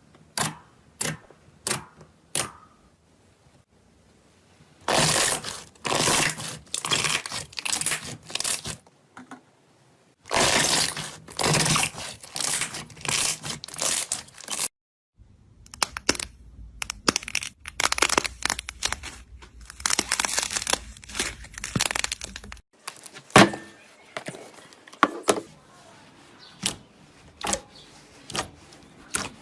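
Slime being squeezed and poked by hand, giving sharp clicks and pops. Longer stretches of dense crackling run for several seconds at a time, with brief breaks between them.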